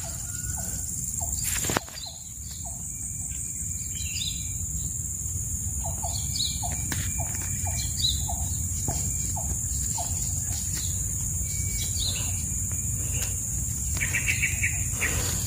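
Outdoor ambience: birds calling in short repeated chirps over a steady high-pitched insect drone, with a low steady rumble underneath.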